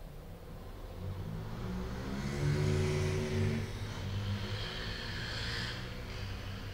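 An engine swelling and then fading over a few seconds, like a vehicle going by, over a steady low hum.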